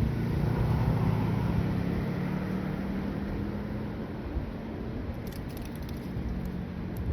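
Low engine hum of a motor vehicle fading away over the first few seconds, leaving a low background rumble.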